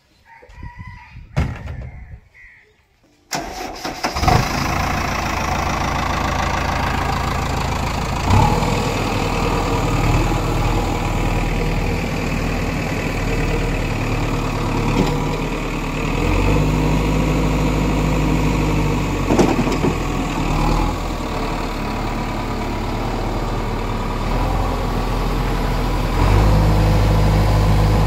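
Diesel engine of a JCB backhoe loader, coming in suddenly about three seconds in and then running steadily, its speed stepping up and down several times.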